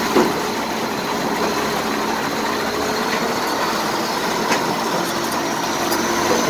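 The 1991 BMY M925A2 military 6x6 truck's Cummins six-cylinder turbodiesel runs steadily as the truck crawls through shallow water over rocks. A faint high whine rises slowly in pitch.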